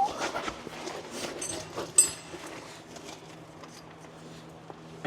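Scattered light clicks and knocks of hand tools and suspension parts being handled, with one sharp metallic clank about two seconds in that rings briefly. A steady low hum runs underneath.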